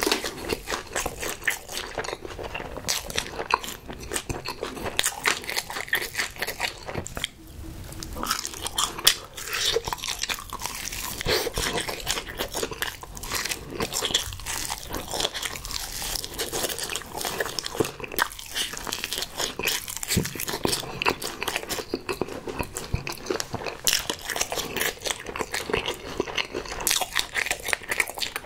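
Close-miked chewing and crunching as a person eats a spicy-sauced, crumb-fried cutlet on a skewer, crisp bites and chews coming one after another. There is a short lull about seven seconds in.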